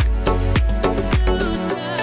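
Background dance music with a steady beat and deep bass hits that fall in pitch; the bass drops out near the end.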